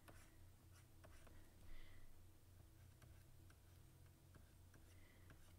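Near silence: faint, scattered ticks and light scratches of a stylus sketching on a graphics tablet, over a low steady hum.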